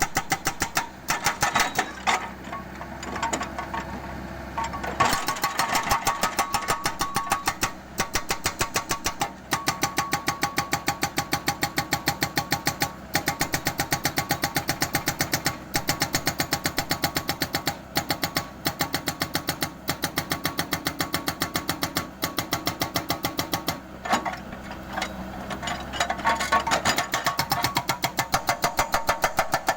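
Mini excavator's hydraulic breaker hammering a concrete bridge slab in rapid, even blows over the running engine, with short pauses near the start and again near the end.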